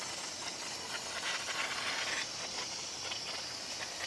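Transmission fluid trickling and dripping from the BMW 320d GT's exposed automatic-transmission valve body into a drain collector, with its oil pan removed to drain the old fluid: a steady hiss-like noise with faint irregular drip ticks.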